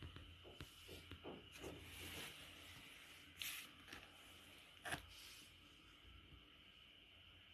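Near silence: faint room tone with a few soft rustles early on, a short rustle about three and a half seconds in, and a sharp click about five seconds in.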